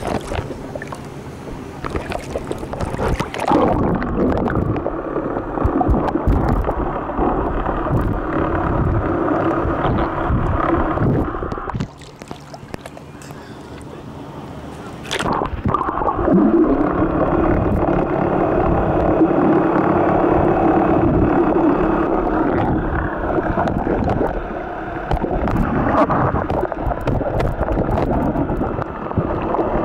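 Camera microphone going under the sea surface: muffled underwater sloshing and gurgling with a steady low drone. It comes up into open air with waves lapping for a few seconds near the start and again about twelve seconds in, then goes back under.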